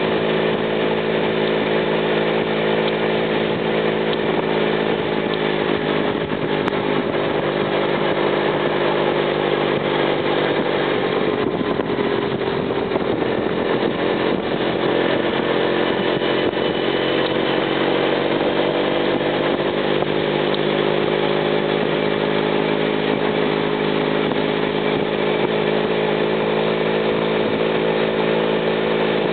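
Small moped engines buzzing steadily as a group of mopeds rides along, their pitch dipping and climbing back about halfway through.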